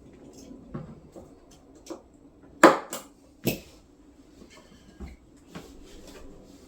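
Plastic filament spools being handled and set into a 3D printer's AMS filament unit: a series of light knocks and clatters, with two sharper knocks about two and a half and three and a half seconds in.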